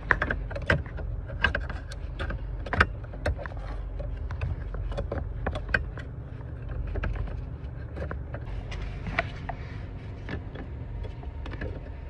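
Irregular clicks and knocks of hands fumbling with plastic dashboard trim and a cable under a car's dashboard, over a steady low rumble.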